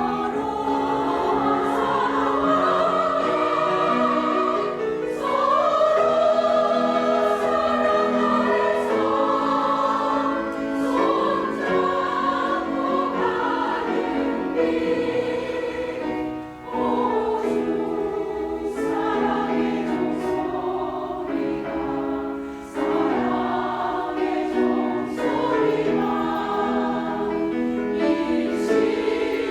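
Church choir singing a hymn in parts, with long held notes and two brief breaks between phrases in the second half.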